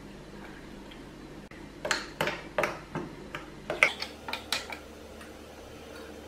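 Light clinks and taps of kitchen utensils being handled: about ten sharp knocks in quick, uneven succession, starting about two seconds in and stopping nearly a second before the end.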